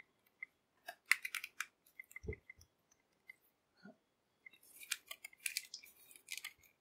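Plastic action figure being handled and turned in the hands: faint scattered clicks and light scraping of its hard plastic armour pieces against each other and the fingers, in a cluster about a second in and another from about four and a half seconds.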